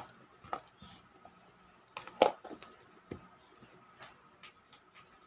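A few light, scattered clicks and taps, with one sharper tap a little over two seconds in, over a faint steady hum.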